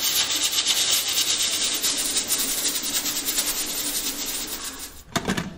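Stovetop pressure cooker venting steam through its valve: a loud, steady hiss with a fast flutter, as the pressure is let off so the lid can be opened. The hiss dies away about five seconds in, followed by a brief thump.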